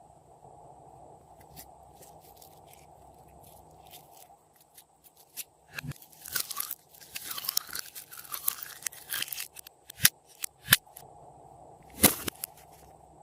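Glossy slime worked by hand. It is near-quiet at first, then from about halfway there is a dense run of crackling and small pops as it is pressed and stretched, followed by a few sharp snapping pops near the end.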